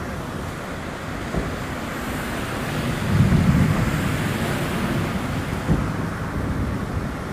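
Floodwater rushing and heavy rain falling, with wind buffeting the microphone. A steady rushing noise that gets louder about three seconds in.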